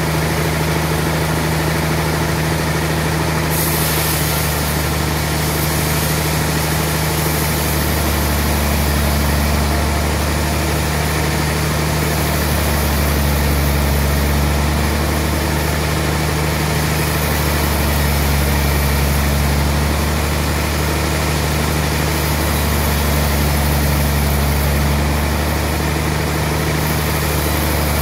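Large band sawmill running and ripping a slab off a trembesi (rain tree) log: a loud, steady machine hum with the noise of the blade cutting through the wood, the high hiss stepping up a few seconds in.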